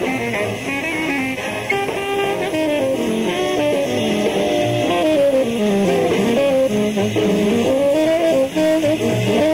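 Big band jazz with the saxophone section playing a winding melody over brass and rhythm section, heard off an AM radio broadcast.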